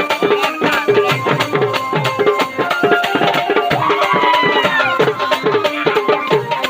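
Indian wedding-band folk music: fast dholki drumming, its low strokes sliding down in pitch, under a gliding melody line.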